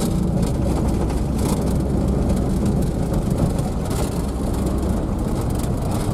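Cab of a vehicle driving on a dirt road: steady engine and tyre rumble, with a few short knocks or rattles.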